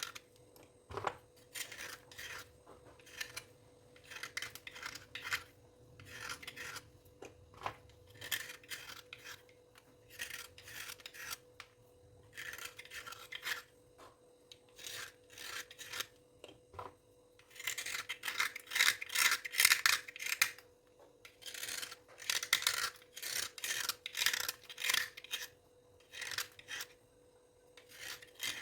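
A dry scalp being scraped in short, raspy scratching strokes that come in quick runs, busiest and loudest about two-thirds of the way through.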